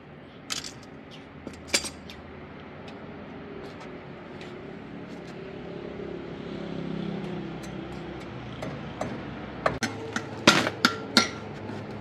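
Scattered knocks and clinks of hard objects, with a low hum swelling in the middle. Near the end comes a quick run of louder knocks, some of them ringing briefly like metal or glass.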